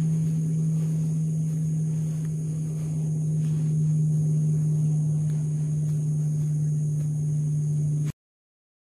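A steady low hum holding one pitch, with a thin steady high-pitched buzz above it; it cuts off abruptly near the end.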